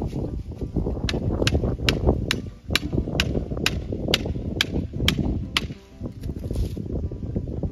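Hammer blows, about eleven sharp, evenly spaced strikes at roughly two a second, starting about a second in and stopping a couple of seconds before the end. They fall where a diagonal wooden brace meets a fence post, which fits nailing the brace in place.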